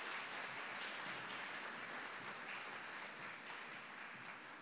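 Large audience applauding steadily, the clapping easing off near the end.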